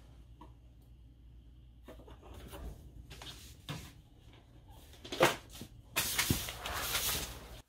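Light knocks and scuffling on a wooden floor from kittens play-fighting, with one sharp loud knock about five seconds in. Near the end comes a loud burst of rustling as the camera is moved quickly.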